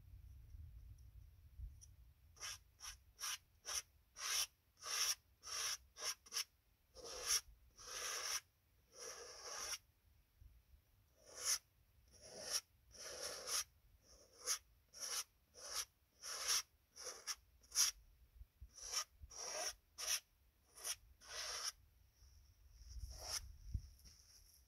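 Palette knife scraping and spreading oil paint across a canvas in short, irregular strokes, about one or two a second, starting about two seconds in and stopping shortly before the end.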